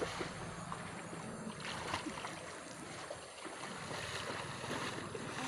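Water splashing and sloshing as a person swims and wades through a muddy pond.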